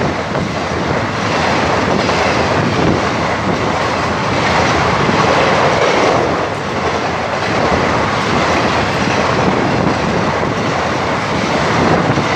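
Indian Railways express passenger coaches passing at speed close by: a loud, steady rush of steel wheels running on the track.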